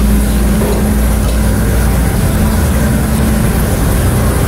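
A steady low mechanical rumble with a constant hum and hiss, as of an engine or machine running without a break.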